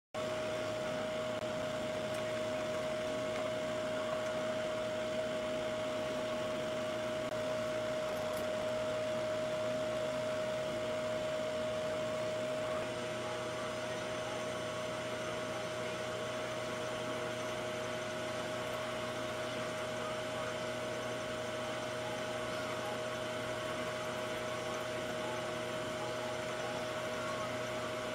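Bridgeport milling machine running, its cutter milling the rear sight dovetail into a 1911 pistol slide. A steady whine over a hiss; about halfway through the sound drops slightly and a low hum joins.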